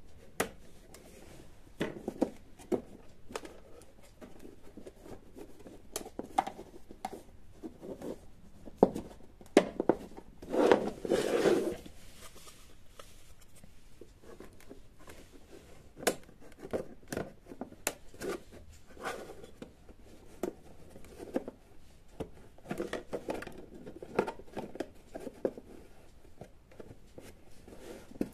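Handling noise from the panels of a small model diorama garage box being fitted together: scattered clicks, taps and light rubbing of panel against panel, with one longer scraping sound of a bit over a second about eleven seconds in.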